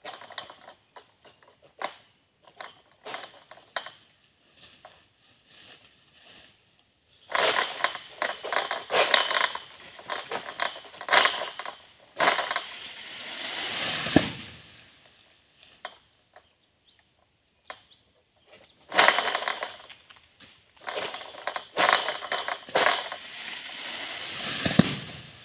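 An oil-palm harvesting sickle on a long pole cuts into fronds at the top of a tall palm, making scattered clicks and then loud clusters of crackling and tearing. Cut fronds crash down through the leaves, one swelling to a low thud about halfway through and another landing near the end.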